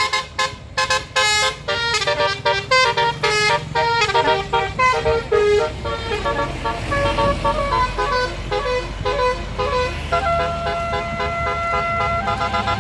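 Bus basuri musical horn playing a fast tune of stepped notes, with one note held for about two seconds near the end, over a low engine rumble.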